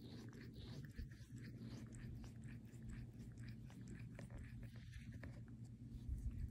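A Bengal cat licking a person, its rough tongue making a quick, faint series of small strokes, several a second.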